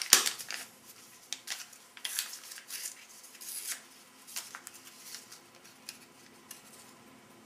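Small MRE instant tea packet being handled and picked at, giving scattered short crinkles and rustles, with a couple of sharp clacks against the plastic tray at the start. A faint low hum sits underneath.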